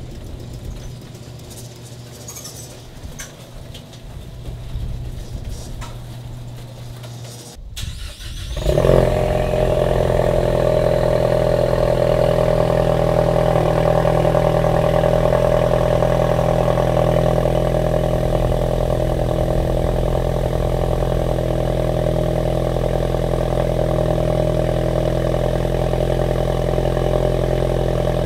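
A garage door opener runs with a steady hum as the door rises. About eight seconds in, the 2019 Mustang EcoBoost's turbocharged 2.3-litre four-cylinder starts with a brief rev flare and settles into a steady idle.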